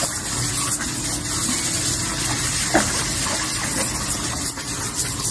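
Garden hose jet spraying steadily into a shallow paddling pool as a dog bites and splashes at the stream, a continuous loud hiss of water.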